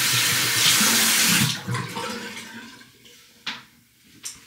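Water running from a tap into a sink, shut off about a second and a half in and trickling away; two small knocks near the end.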